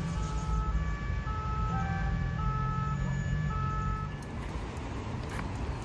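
Steady low rumble of street traffic, with a simple melody of short held, chime-like notes over it that stops about four seconds in.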